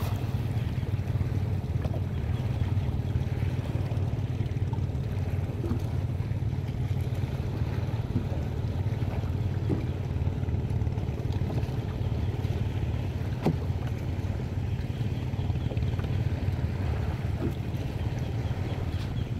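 Wind buffeting the microphone in a steady low rumble, over small waves lapping in shallow sea water. One faint knock about 13 seconds in.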